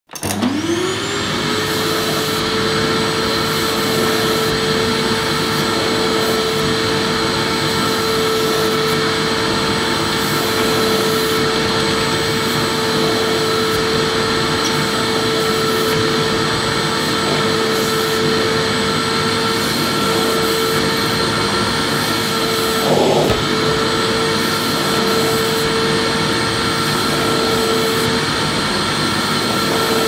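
Vacuum cleaner switched on, its motor whine rising in pitch over the first second as it spins up, then running steadily over a rush of air. A brief hitch, a short wobble in pitch and a small bump, comes about three-quarters of the way through.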